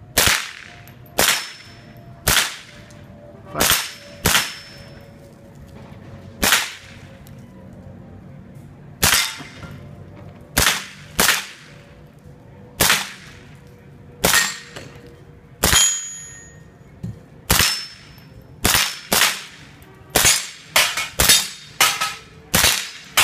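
M16-type 5.56 mm rifle fired single shot after single shot, about two dozen sharp reports, each with a short echo. The shots come a second or more apart at first and speed up to about two a second near the end.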